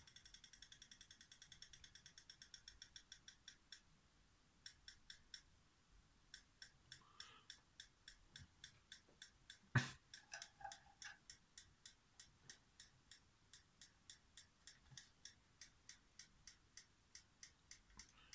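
Cheap toy strobe light ticking faintly, one sharp click with each flash. The ticks slow from about six a second to about two and a half a second, with one louder knock about ten seconds in, and stop shortly before the end.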